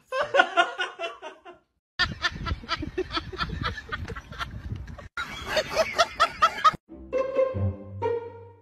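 Person laughing in quick, rhythmic bursts, then music with held notes and a low beat starting near the end.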